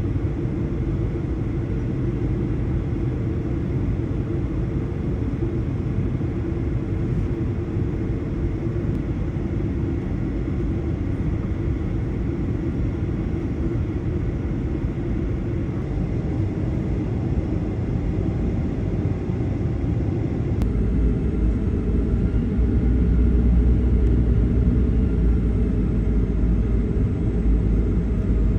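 Steady jet airliner cabin noise: engine and airflow rumble. About two-thirds of the way through, a brief click is followed by a heavier, deeper rumble, and it grows a little louder.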